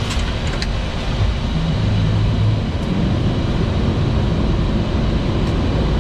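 Steady low rumble of cockpit noise on a Boeing 737 MAX flight deck in flight.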